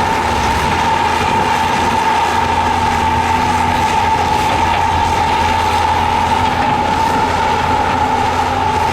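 Heavy earthmoving machinery running steadily: a diesel engine's low drone under a steady high-pitched whine.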